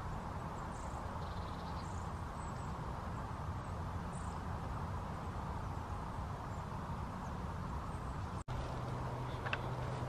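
Steady low outdoor rumble while walking a countryside path, with a few faint high chirps in the first half. The sound drops out for an instant near the end, and a steady low hum follows.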